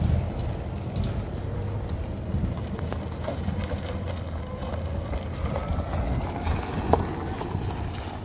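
2006 FYM Motobishi electric golf cart driving slowly across gravel: tyres crunching on the stones under a steady low rumble of wind on the microphone, with one sharp click about seven seconds in.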